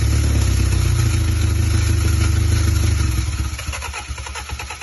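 Honda Integra's swapped B20 VTEC four-cylinder engine running with a steady, low rumble. The rumble dies away about three seconds in.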